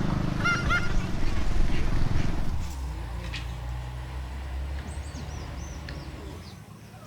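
A motor engine running steady and low, then fading away over a few seconds as it moves off. Short bird chirps come about half a second in, and a few high chirps near the end.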